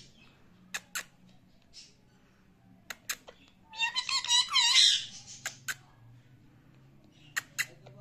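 A male rose-ringed (Indian ringneck) parakeet gives one warbling, voice-like talking phrase of just over a second, about four seconds in. A few sharp clicks, mostly in pairs, come before and after it.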